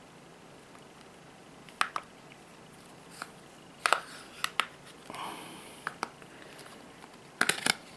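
Plastic back cover of a Xiaomi Redmi Note smartphone being pried off by hand: a series of sharp clicks as its snap-in clips let go, with a short scraping rustle in the middle and the loudest cluster of clicks near the end.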